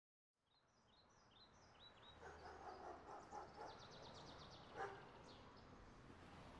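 Faint outdoor ambience fading in, with a small bird repeating short, falling high chirps, then a rapid high trill. A short clack sounds near the end.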